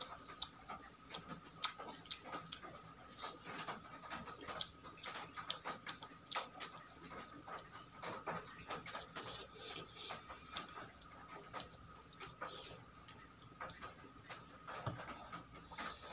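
Close-miked chewing and mouth smacking of a person eating rice and cooked vegetables: many irregular wet clicks and smacks, several a second.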